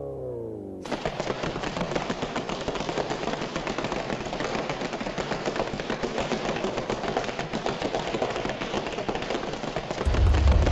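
Harsh noise effect: a falling tone winds down in the first second, then cuts to a dense, rapid crackling like loud static. A deep rumble comes in near the end.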